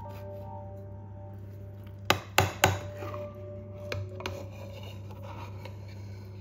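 Three quick, sharp clicks of cutlery against a plate about two seconds in, followed by a few softer scrapes and knocks, over soft background music.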